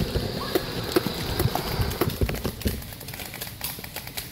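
Irregular light knocks and clicks, several a second, from the camera being handled and moved, with a short faint chirp at the start.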